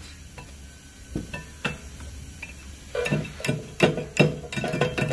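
Flathead screwdriver working metal parts out of a car's rear brake caliper bracket: a few scattered clicks, then from about three seconds in a busy run of metallic clinks and scrapes with some brief ringing.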